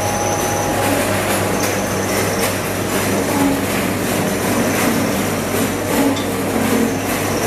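Screw oil press running steadily, a constant machine hum with scattered light metallic clinks.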